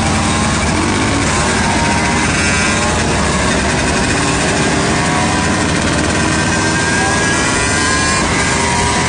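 Motorcycle engines running while riding, heard from the bike under a steady rush of wind on the microphone. Several engine pitches slowly rise and fall.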